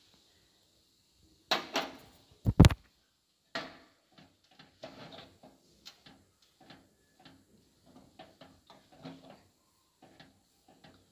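A metal spoon knocking and scraping against a metal pan while thick rava kesari is stirred. A clatter and a sharp, louder knock come about two seconds in, followed by irregular scraping strokes about once or twice a second.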